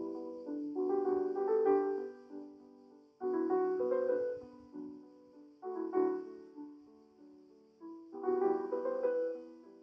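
Solo piano playing slow ballet class accompaniment for pliés: phrases of chords start about every two and a half seconds, each one fading away before the next begins.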